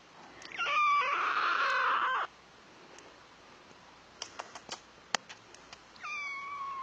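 Kitten meowing: a loud, raspy cry lasting nearly two seconds about half a second in, then a few light clicks, then a shorter meow that falls in pitch near the end.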